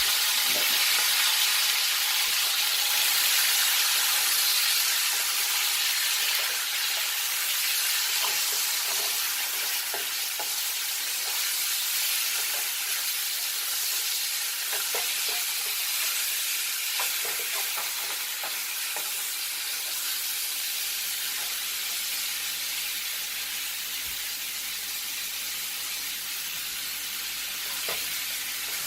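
Chicken pieces sizzling in a very hot frying pan as they are seared, a steady hiss that slowly eases off, with a few light clicks.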